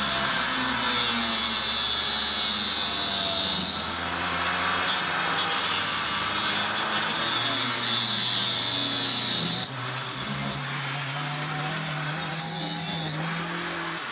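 Angle grinder running and grinding into welded steel pieces at a sailboat's swing-keel mount, throwing sparks. About two-thirds of the way through the grinding eases off and the sound gets quieter while the motor keeps spinning.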